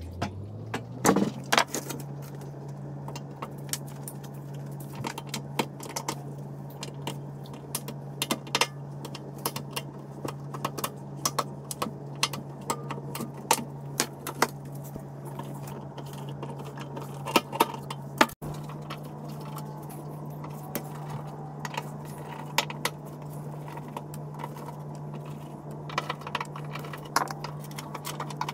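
Hand tools clinking, tapping and scraping on a steel fuel tank's sending-unit flange as the old fuel pump and sender are worked loose, with many sharp metallic clicks. A steady low machine hum runs underneath, breaking off briefly about two-thirds of the way through.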